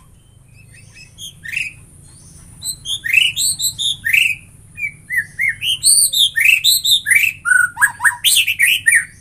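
White-rumped shama in full song: a rapid, varied run of short whistled notes sliding up and down. It starts with a few notes about a second and a half in and becomes continuous from about three seconds.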